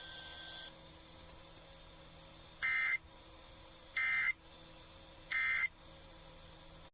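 Emergency Alert System end-of-message signal: three short, identical buzzy digital data bursts about a second apart. They close the relayed tornado warning.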